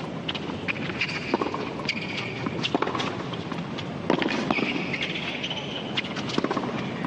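Tennis rally on a hard court: racquets striking the ball back and forth, with sneakers squeaking and feet scuffing as the players run and lunge.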